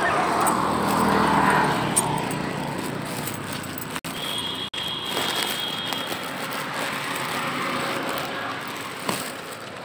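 Road traffic: a motor vehicle passing close by, loudest in the first couple of seconds, then a steady traffic hum that slowly fades, with a brief faint high tone about five seconds in.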